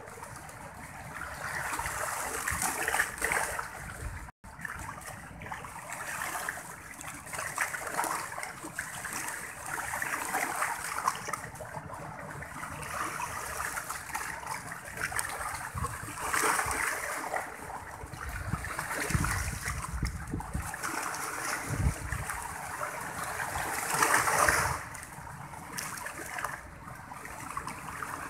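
Choppy, wind-driven sea water sloshing and splashing, swelling and easing in surges, with a brief low rumble about two-thirds of the way through. The sound cuts out for an instant about four seconds in.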